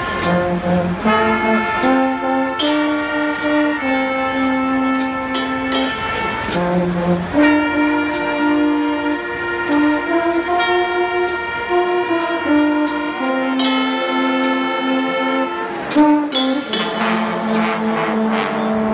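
Guggenmusik carnival band playing a tune: trumpets, trombones and sousaphone hold loud chords that shift every second or two, over snare drum and cymbal strikes, with a louder crash near the end.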